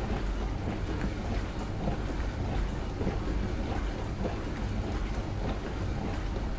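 Loaded dishwasher running its wash cycle: water splashing and sloshing inside the tub over a steady low hum from the pump.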